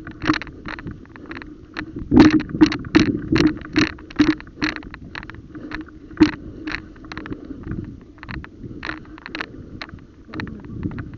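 Footsteps crunching through dry leaves and undergrowth at a walking pace, about two steps a second.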